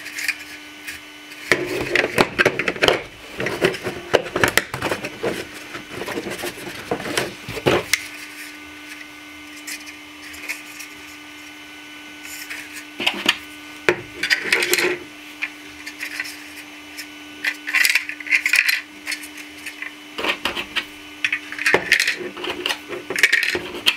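Hard 3D-printed plastic seed-starting cells clicking and clattering in irregular bursts as they are handled, pulled out of and pushed back into a printed cell tray.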